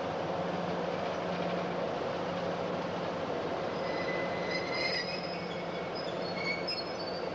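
PKP ST44 (M62) diesel locomotive's two-stroke V12 diesel engine running with a steady low hum and rumble. Brief high-pitched wheel squeals come in about halfway through and again near the end.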